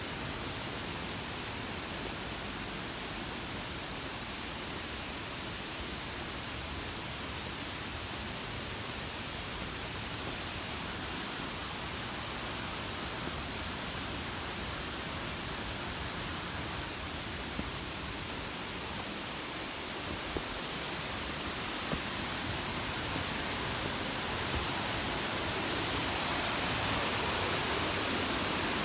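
Waterfall: a steady rush of falling water that grows a little louder near the end.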